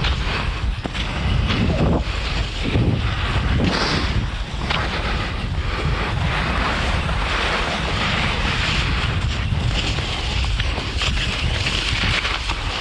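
Wind buffeting the microphone over the steady hiss of cross-country skis gliding on snow; the hiss grows stronger in the second half.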